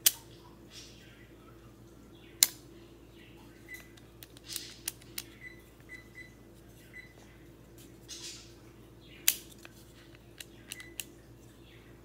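Metal selector switch of a homemade URU SMG dummy being flicked between its safe, semi-auto and auto positions, clicking as it snaps into each detent, where a pressure fork rides on the cam's flats. Three sharp, loud clicks come right at the start, about two and a half seconds in and about nine seconds in, with lighter clicks and handling taps in between.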